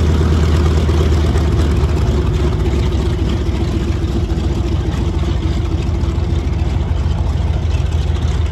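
Curtiss SB2C Helldiver's 14-cylinder Wright R-2600 radial engine running at taxi power with a steady, deep drone, growing slightly quieter as the aircraft taxis away.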